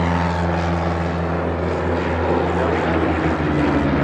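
A propeller aircraft's piston engine running steadily on a low pass to snag a banner. Its pitch drops slightly near the end as it goes by.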